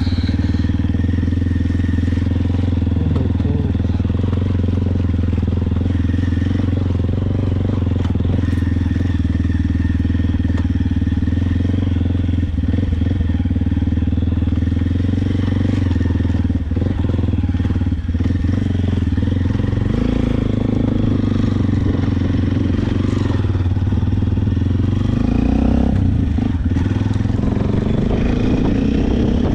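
Motorcycle engine running at a steady speed while riding, heard from on the bike, with a steady hum and road noise.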